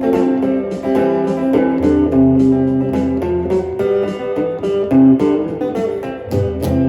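Instrumental music: a country-style band with guitars, bass and drums playing a steady beat, with no singing.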